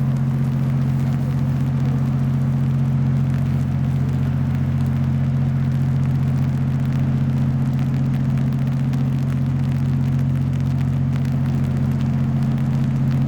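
Steady, low engine drone with a deep, unchanging hum.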